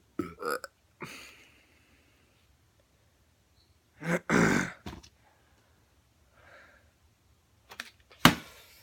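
A burp lasting almost a second about four seconds in, with a few short knocks and scrapes around it. A sharp knock near the end is the loudest sound, typical of a plastic water bottle landing after a flip.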